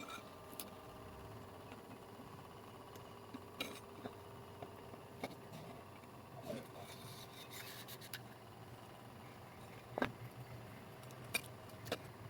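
Scattered light clicks and taps from hand tools and parts being handled during electronics repair on a bench, about five in all, the sharpest about ten seconds in, over a faint steady hum.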